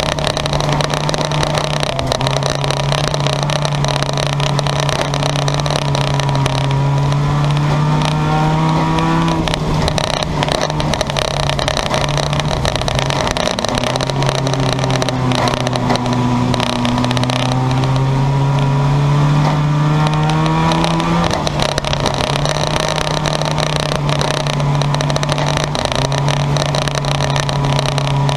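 Junkyard-car race engines running at racing speed. One engine's pitch climbs steadily and then drops off sharply, twice, over the steady noise of the other cars.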